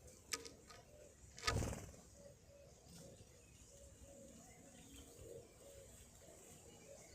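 Pigeons cooing softly in short repeated notes, with a sharp click shortly after the start and a louder brief thump about a second and a half in.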